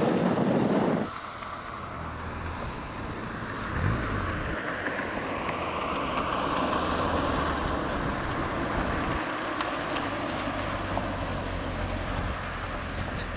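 Wind buffeting the microphone for about the first second. Then a Lancia Beta Coupé's twin-cam four-cylinder engine is heard as the car drives toward the camera and passes close by, its note rising a few seconds in.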